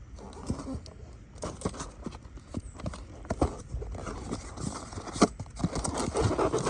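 Irregular clacks and knocks of parts and tools being handled during a car starter replacement, with one sharper knock about five seconds in.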